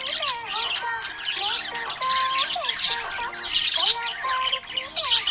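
Budgies chirping and warbling in a continuous busy chatter of quick chirps, mixed with sliding and briefly held whistled notes.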